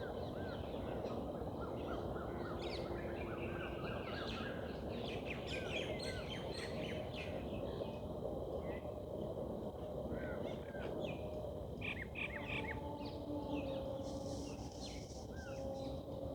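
Dawn chorus: many birds chirping and calling at once, with short rising notes and rapid trills, over a steady low background noise.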